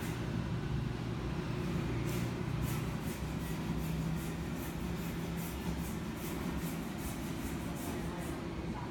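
Steady low hum, with faint, irregular rubbing and rustling of fishing line as fingers pull it through a knot and draw it tight.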